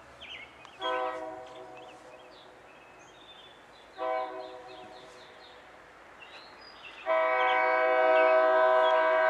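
Nathan K5LA five-chime air horn on a Norfolk Southern SD40-2 locomotive sounding a chord three times: two short blasts about three seconds apart, then a long blast from about seven seconds in, the loudest. The horn is sounding for the grade crossing the train is approaching.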